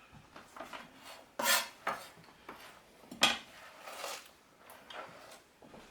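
Kitchenware clattering while cut cabbage is handled: a few separate sharp knocks and clinks, the loudest about three seconds in, with soft handling noise between.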